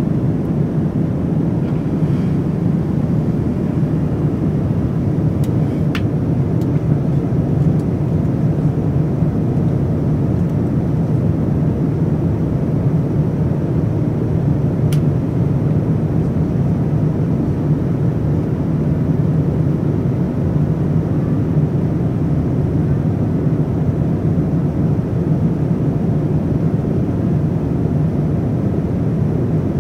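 Steady cabin noise of a Boeing 787-9 in cruise, heard inside the cabin: a constant low rush of engine and airflow noise that never changes, with a couple of faint clicks.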